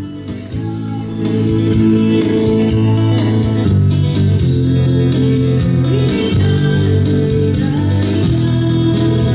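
Music with singing and guitar playing through a Paradigm Titan bookshelf speaker whose woofer has just been refoamed, as a listening test of the repair. The music gets louder about a second in.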